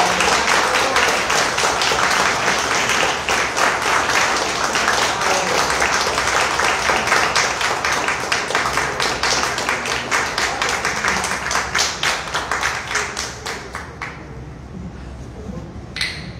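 Small audience applauding, thinning out and dying away about fourteen seconds in, with one short sharp click near the end.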